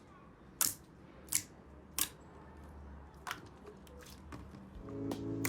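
Slime being handled, giving sharp crisp clicks roughly every two-thirds of a second. Music fades in near the end.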